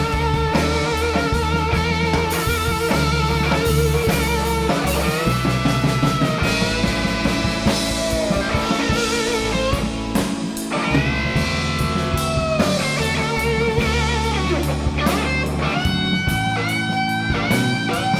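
Live blues band playing an instrumental passage: an electric guitar through a Divided By 13 amp takes a solo with wide vibrato on held notes early on and several string bends later, over drums, bass and keyboard.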